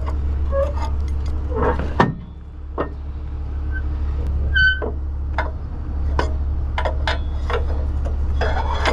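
Heavy rotator tow truck's diesel engine idling steadily with the PTO engaged, under metal clicks and clanks from the rear spade's lock pin and handle being worked by hand. The sharpest knock comes about two seconds in, and a brief high tone about four and a half seconds in.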